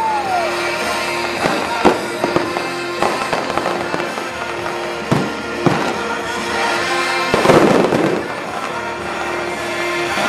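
Fireworks display: shells bursting with sharp bangs and crackling, the biggest cluster of bursts about seven to eight seconds in, over steady music.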